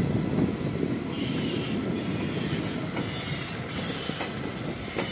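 Passenger train running along the rails, heard from aboard a moving coach: a steady, dense rolling noise of wheels on track, with a few sharp clicks in the second half.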